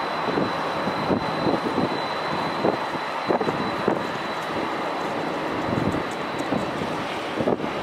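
Twin-engine widebody jet airliner coming in to land, a steady jet engine noise with a thin high whine running over it, buffeted by irregular gusts of wind on the microphone.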